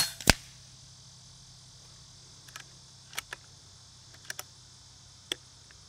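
FX Wildcat MK2 Compact .25 regulated PCP air rifle firing once through its shroud and moderator, a sharp crack followed about a third of a second later by a second sharp crack. Then a few light clicks as the rifle's action is handled to cycle it, over a steady high hiss of insects.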